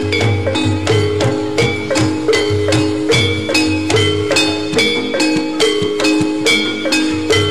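Javanese gamelan music: metal-keyed instruments struck in a quick, steady pattern of ringing notes over held, sustained tones and a low, regular pulse.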